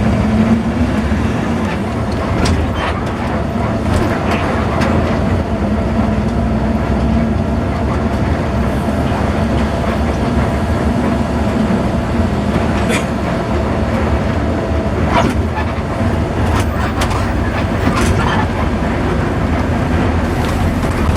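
Coach bus on the move, heard from inside the cabin: a steady engine and road rumble with a constant drone, and now and then a light rattle or click.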